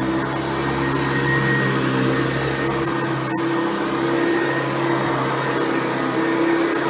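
Hoover Convertible U4349 upright vacuum cleaner running steadily while vacuuming, its hum shifting slightly as it is worked, with one brief click a little past the middle.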